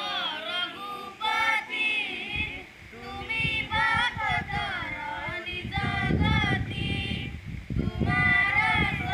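A group of schoolchildren singing a prayer song together, with wavering sustained notes; a low rumble comes in about halfway through.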